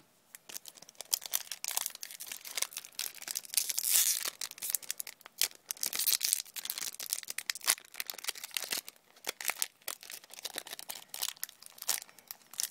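Foil wrapper of a Yu-Gi-Oh! booster pack crinkling and being torn open by hand: a dense run of crackles, loudest about four and six seconds in.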